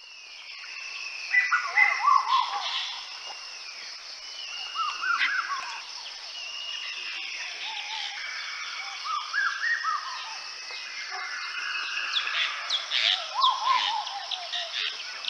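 Black-billed koel calling in repeated bursts of short rising notes, a burst every few seconds, over other jungle birds' whistles and a steady high background chorus.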